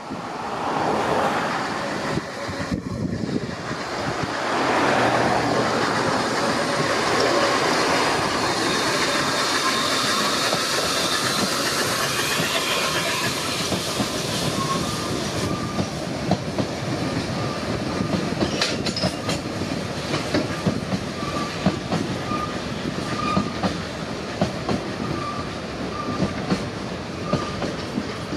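Narrow-gauge steam train, led by the NGG16 Garratt locomotive NG.87, passing close by. It is loudest over the first half as the locomotive goes past, then the coaches roll by with a run of sharp clicks from the wheels.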